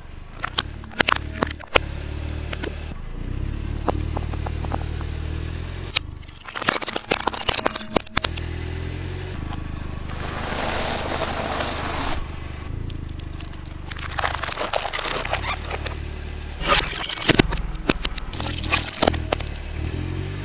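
Plastic toys cracking and crackling as they are crushed under a car's tyres, many sharp snaps in clusters over a low steady hum.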